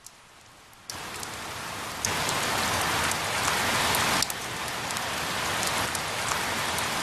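Heavy rain falling, with scattered sharp drop ticks. It gets heavier in two steps about one and two seconds in, then eases slightly about four seconds in.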